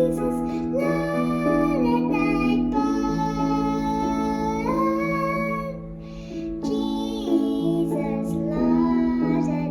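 A young student singer singing a slow melody over held instrumental accompaniment, with a short break in the voice about six seconds in.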